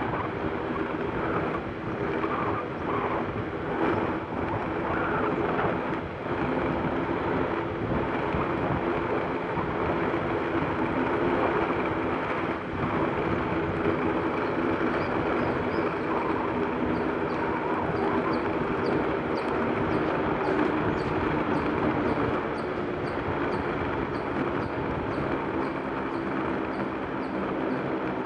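Inline skate wheels rolling on asphalt close to the microphone: a steady rolling noise with a low hum, swelling slightly as the skater pushes.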